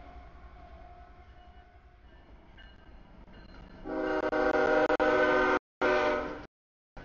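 Freight train rumbling past a grade crossing. About four seconds in, a diesel locomotive's multi-note air horn blows loud and steady, sounding for the crossing, and is cut off abruptly a couple of seconds later.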